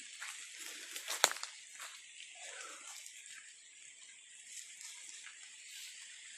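Rain falling steadily on the forest canopy and leaf litter, a constant hiss, with footsteps rustling through wet leaves in the first few seconds. A single sharp click about a second in.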